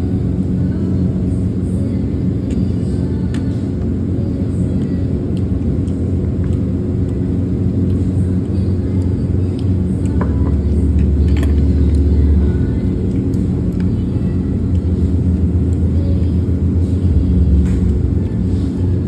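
Steady low rumble with a faint hum, and a few light clicks of a metal fork and knife against a ceramic plate.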